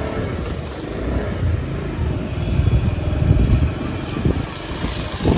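Motorbike engine and road noise heard from the pillion seat while riding along a street, a steady low rumble that swells and eases.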